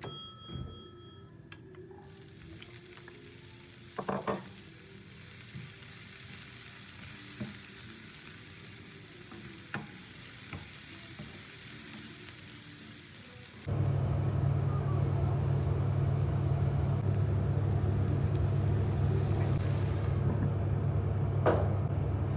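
Food sizzling in ghee in a frying pan, with a few sharp clicks of a utensil. About two-thirds of the way through, a loud steady low hum starts suddenly and covers the sizzle.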